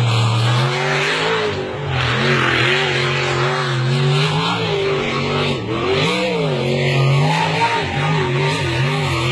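Jet sprint boat engine driven hard, its pitch rising and falling repeatedly as the boat is throttled through the tight turns, over a steady rush of water spray.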